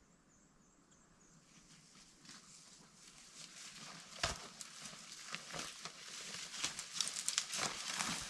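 A person's footsteps crunching through brush in the woods, faint at first and growing louder from about three seconds in, with one sharper snap about four seconds in.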